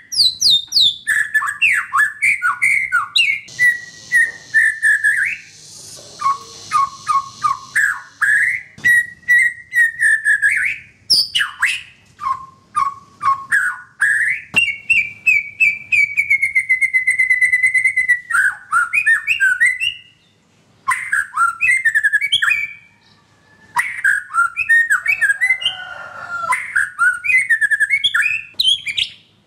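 White-rumped shama singing a long, varied song of quick whistled phrases, trills and chattering notes. About halfway through it holds one long whistle that falls slightly in pitch.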